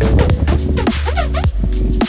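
Electronic background music with deep bass, regular drum hits and held synth notes; a quick warbling synth run about a second in.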